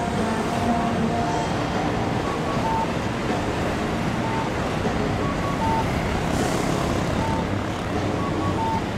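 Steady city traffic noise from road vehicles and a JR East electric commuter train passing on an elevated viaduct. A thin melody of short notes runs over it.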